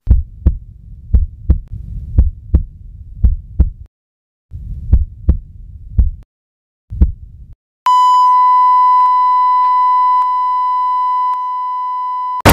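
Heartbeat sound effect: paired low thumps that slow and break off about seven seconds in. Then, about eight seconds in, a heart monitor's flatline comes in: one long, steady high beep, the sign of the heart stopping.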